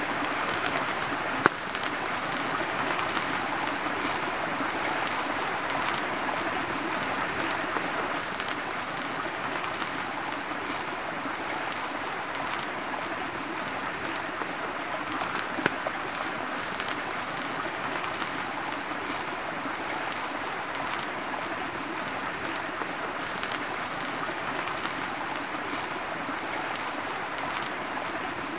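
Steady rushing of a flowing river or stream, with a sharp knock about a second and a half in and a smaller click about halfway through.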